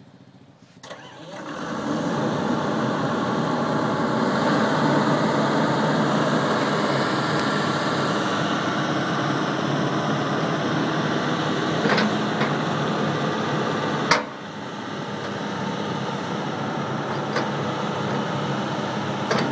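Hitachi EX200LC-5 excavator's diesel engine picking up speed about a second in, then running steadily as the hydraulic boom and bucket are worked. A few sharp knocks come through, the loudest about two-thirds of the way in.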